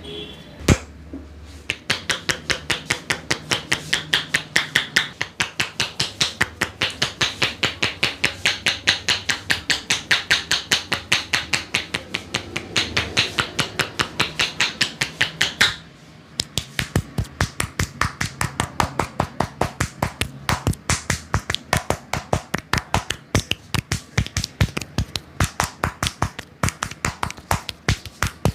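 A massaging barber's hands striking the body in rapid percussive massage strokes, a steady rhythm of about four sharp slaps a second. The strikes break off briefly about sixteen seconds in and then start again.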